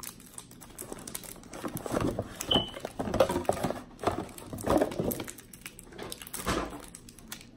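Handling noise from a cardboard camera box and its packaging as the camera is pulled out: irregular rustles and light knocks, with a brief high squeak about two and a half seconds in.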